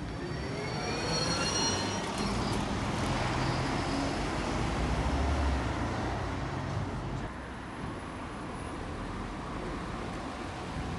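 Route bus pulling away from the stop: a whine from its engine and drivetrain rising in pitch over the first two seconds, then a low engine rumble that is loudest about five seconds in and fades as the bus moves off.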